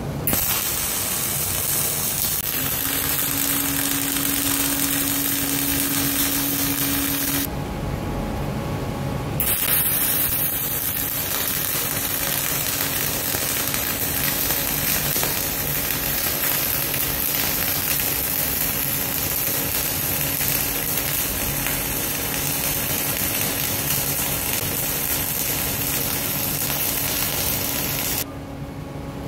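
MIG welding arc running steadily as a pass is laid into a hot mild-steel plate, with a break of about two seconds about a quarter of the way in, then running on and stopping just before the end. A steady hum sits underneath.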